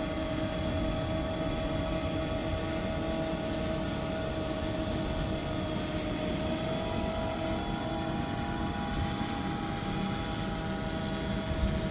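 Quadcopter's electric motors and propellers whining steadily as it hovers, holding position on its own in GPS Loiter mode, with a slight shift in pitch partway through.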